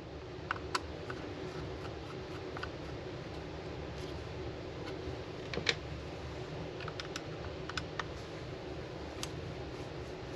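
Scattered light clicks and taps of a screwdriver working the small screws out of a model locomotive's top cover, over a steady low hum. The sharpest click comes about halfway through.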